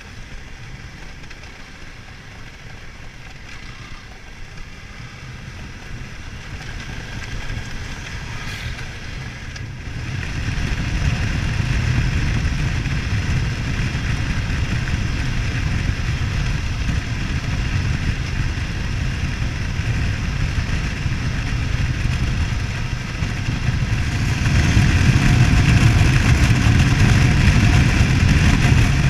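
BMW F800GS motorcycle under way: its parallel-twin engine running steadily with wind and road noise. The sound gets louder about ten seconds in and again about five seconds before the end.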